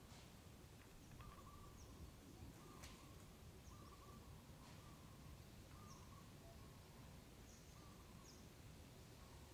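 Near-silent background with a faint bird repeating a short, slightly falling call about once a second, and a few faint high chirps in between.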